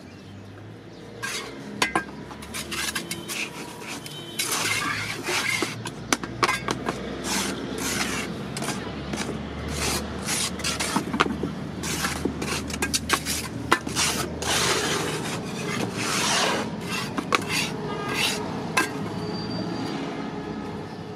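Steel trowel scraping and smoothing wet cement mortar in a metal-edged roof-tile mould, in repeated strokes with frequent sharp clinks and taps of metal on metal.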